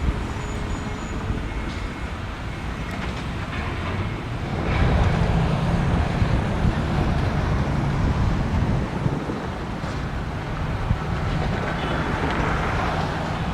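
Steady street traffic noise, with a large vehicle passing close by and growing louder about four and a half seconds in, its low engine hum continuing through the rest.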